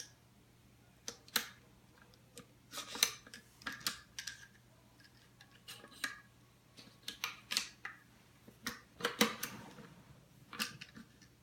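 Light metallic clicks and short scrapes at irregular intervals as an M4A1's bolt carrier and charging handle are worked into the upper receiver, with the parts not yet sliding into place.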